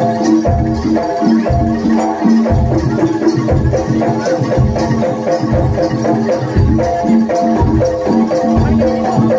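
Jaranan gamelan ensemble playing: metallophones ring a short repeating melody over regular low drum strokes.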